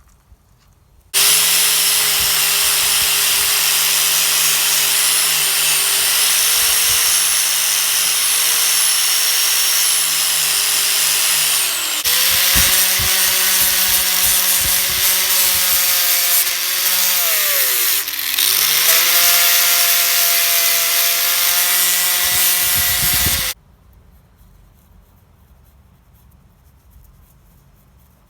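Handheld electric power tool fitted with a wire cup brush and then a sanding disc, running against a steel axe head to strip rust. It gives a steady motor whine in two runs with a short break near the middle. Late in the second run it slows and drops in pitch once as it is pressed into the metal, then picks back up.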